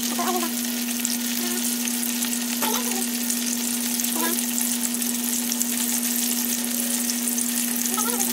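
Skinless longganisa sausages frying in oil in a nonstick pan: a steady sizzle with fine crackling, over a steady low hum.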